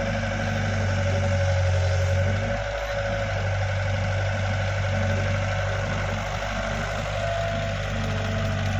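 Diesel engine of a Kato crawler excavator running steadily as the machine digs soil and swings a loaded bucket.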